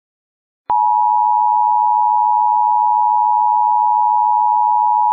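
Two-tone Emergency Alert System attention signal. It starts abruptly out of silence about a second in and holds one loud, unchanging discordant chord, the alert that comes before an emergency message is read out.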